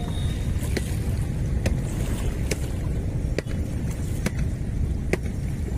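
Steady low rumble of wind buffeting the microphone, with a sharp click about once a second.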